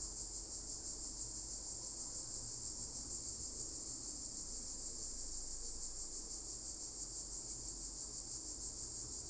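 Steady high-pitched background noise with a low hum underneath, unchanging throughout; no distinct sound stands out.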